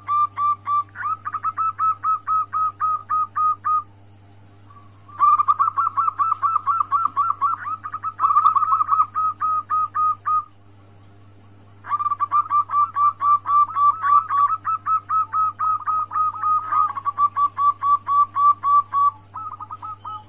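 Female zebra dove (perkutut) calling: fast runs of short coos, about six a second, in bouts broken by pauses of a second or so. This is a female's call to a male, played to bring a male into breeding condition. A faint high ticking repeats steadily underneath, with a low steady hum.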